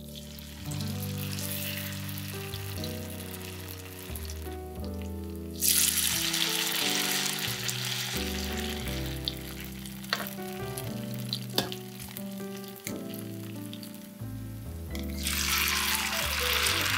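Food sizzling as it fries in oil in a pan. The sizzle comes in sharply about six seconds in and swells again near the end, with a couple of sharp clicks, over background piano music.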